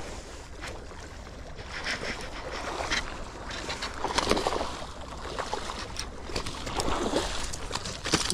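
Water sloshing and surging in several noisy swells while a baitcasting reel is cranked, reeling in a hooked hirasuzuki (Japanese sea bass).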